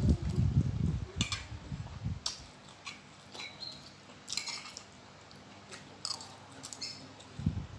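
Close-miked eating of instant noodles: loud slurping and chewing for about the first second, then quieter chewing with a few short, sharp clicks.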